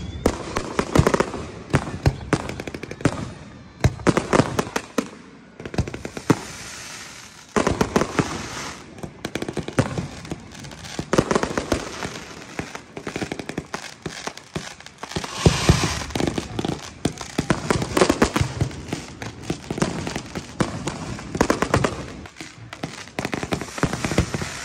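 Fireworks display: aerial shells going off in close clusters every few seconds, with sharp bangs and dense crackling.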